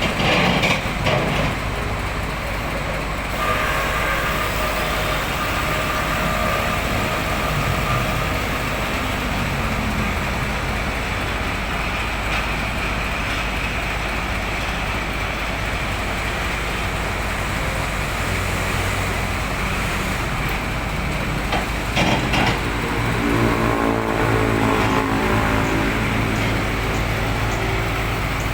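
Komatsu D65P bulldozer working, its diesel engine running steadily. There are a few sharp knocks about a second in and again around 22 seconds, after which the engine note becomes clearer and more pitched.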